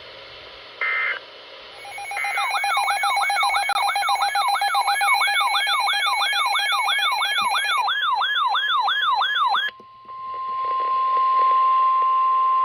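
Weather-radio alert signals: two short buzzy data bursts, then an electronic alarm tone warbling up and down about three times a second for about seven seconds, going ragged near its end. It cuts to a steady single beep-like tone, the 1050 Hz attention tone that precedes a NOAA Weather Radio warning.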